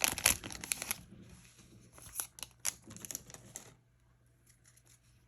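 Foil booster-pack wrapper crinkling for about a second, then the trading cards inside handled with scattered light clicks and rustles that die away about two-thirds of the way through.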